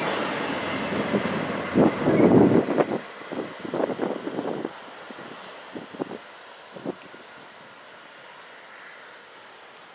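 Freight train of autorack cars rolling past close by, wheels clattering and knocking over the rails; the last car goes by about three seconds in and the rumble fades away as the train recedes, with a few fainter knocks until it is gone.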